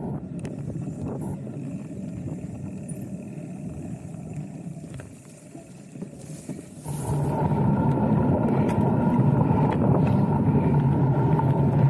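Rumbling wind noise on the microphone and tyre noise from a mountain bike riding a dirt trail, getting clearly louder about seven seconds in.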